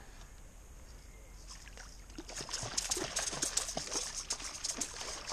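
A hooked lake trout thrashing and splashing at the surface of the water near the shore. It starts about two seconds in as a run of quick, sharp splashes.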